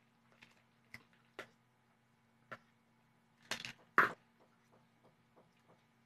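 Quiet eating sounds: scattered small clicks and knocks of a fork against a plastic plate. A louder, short noisy burst comes about three and a half seconds in, over a faint steady low hum.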